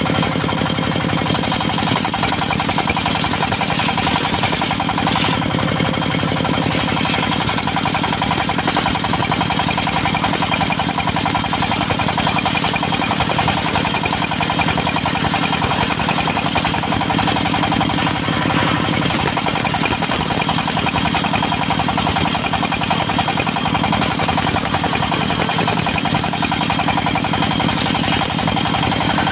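Diesel engine of a mobile circular sawmill running steadily with a knocking beat.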